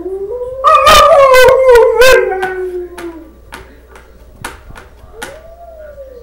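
A dog howling: a long howl that falls in pitch over about two seconds, then a shorter howl near the end that rises and falls. Several short, sharp sounds are scattered through it.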